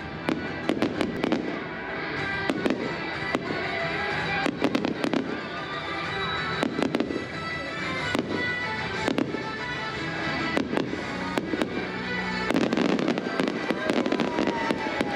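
Fireworks bursting in quick succession, with many sharp bangs and pops over music playing on loudspeakers; the bursts grow denser and louder near the end.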